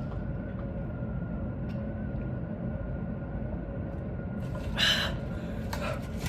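Steady low background rumble with a faint hum, broken by one short noisy sound about five seconds in.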